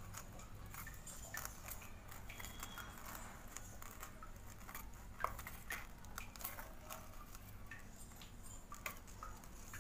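Metal spoon stirring a crumbly paneer, onion and spice mixture in a stainless steel bowl: faint scraping with many small irregular clicks of the spoon against the bowl.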